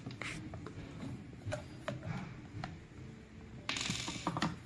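Small clicks and taps of hard plastic as the top screw is undone and the cover of a macerator pump's switch compartment is lifted off, with a brief scraping noise near the end.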